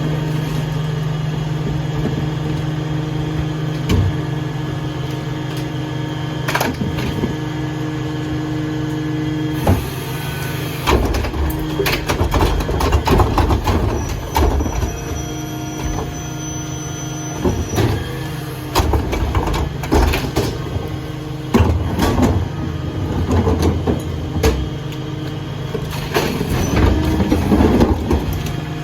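Dennis Eagle rear-loader garbage truck with an AirFlo body running with a steady low hum. From about ten seconds in, repeated clanks and bangs come irregularly over the hum.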